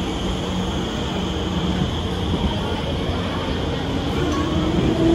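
SMRT R151 metro train's SiC-VVVF traction drive (Alstom MITrac TC 1500) pulling away from the platform. A low steady hum gives way, near the end, to a slowly rising motor whine as the train gathers speed, over the rumble of the moving cars.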